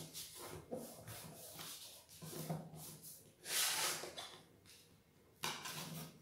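Paper rustling and rubbing as a sheet of paper is folded and its creases are pressed flat by fingers and a ruler, with a longer, louder rub a little past halfway and another near the end.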